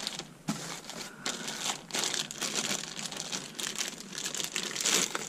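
Clear plastic bag crinkling in irregular crackles as hands unwrap a small drone's radio transmitter from it.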